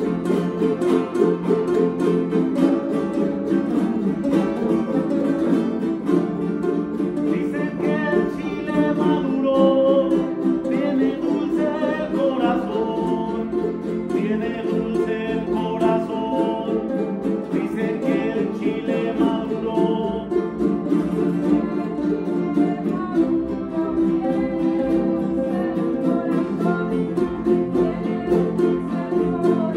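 Son jarocho played by a small group of jaranas strummed together in a steady, driving rhythm. A higher melody line comes in over the strumming through the middle stretch.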